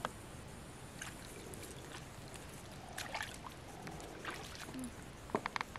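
Small splashes and trickling water at the edge of a muddy pond as something is flung into the water, with a quick run of sharp clicks near the end.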